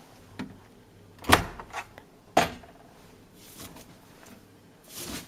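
Samsung front-loading washing machine door being opened and the drum handled: a few sharp knocks and clicks, the two loudest about one and two and a half seconds in, with a short rustle near the end.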